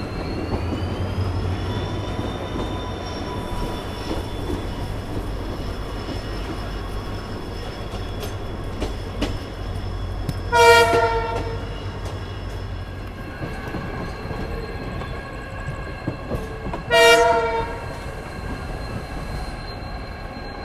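Rail travel heard from inside a moving passenger coach: a steady low rumble under thin whining tones that rise in pitch over the first couple of seconds. Two short train horn blasts, about six seconds apart, sound midway and near the end.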